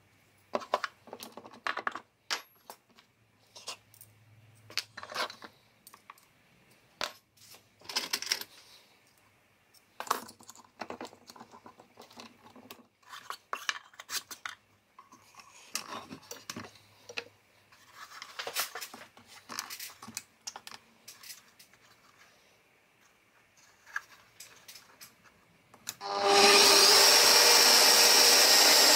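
Scattered clicks, scrapes and rubbing as tools and a piece of wood are handled on the drill stand's metal table. About 26 seconds in, an electric drill clamped in the drill stand starts and spins up, then runs steadily and loudly.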